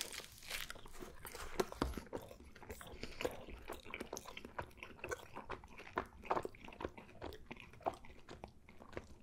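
A person chewing a mouthful of pepperoni pizza close to the microphone, with many small irregular clicks of the mouth and food.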